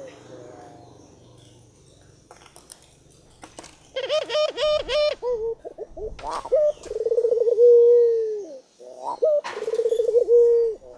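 Bird calling, probably a dove: three long calls, each a quick stutter running into a long held note that drops at the end, and a run of about five sharp notes around four seconds in. A few faint clicks fall between the calls.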